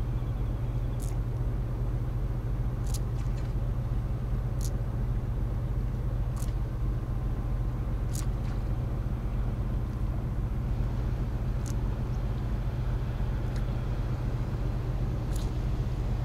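A machine, most likely an engine, runs at a steady, unchanging low hum. A short, sharp high tick sounds over it about every two seconds.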